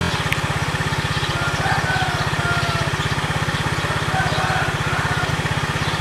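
An engine running steadily, with a fast, even low throb. Short faint chirps are heard above it.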